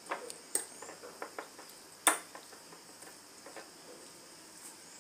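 Metal spoon clinking and scraping against a bowl while tossing sliced tomatoes and onions: scattered light clicks, with one louder clink about two seconds in.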